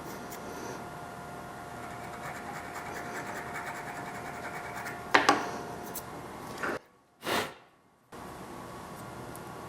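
Scraping and rubbing over a steady hum, then a sharp knock about five seconds in; the sound drops out briefly, with one short burst, before the hum returns.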